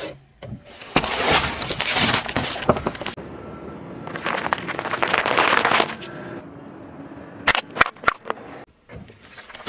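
A car tyre rolling over and crushing objects on asphalt: two long bursts of crunching and crackling, then a few sharp separate cracks near the end.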